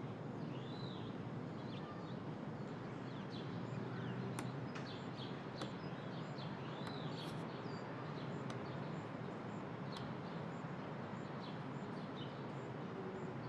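Outdoor ambience: small birds chirping and tweeting now and then over a steady background hiss.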